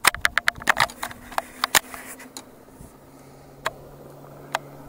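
Camera being handled and repositioned: a quick run of clicks and knocks, followed by a steady low hum with two single clicks near the end.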